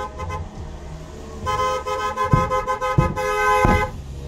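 Car horn honking, two tones together: a brief toot at the start, then a longer stretch of horn blowing that stops a little before the end. A few dull firework bangs from the display sound under it.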